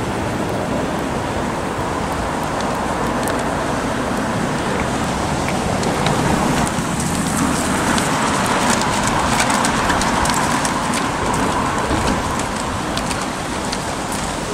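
Steady street traffic noise. A car passes close by in the middle, its engine and tyre noise swelling and then fading.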